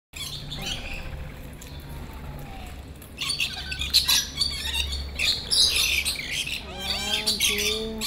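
A flock of lorikeets chattering and screeching: scattered faint chirps at first, then a dense run of shrill, overlapping calls from about three seconds in.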